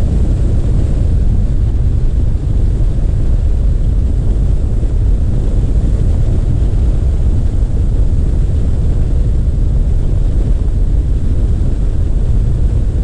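Pipistrel Alpha Trainer light aircraft in flight, heard from a camera mounted outside under the wing: a loud, steady rush of airflow buffeting the microphone over the drone of the engine and propeller.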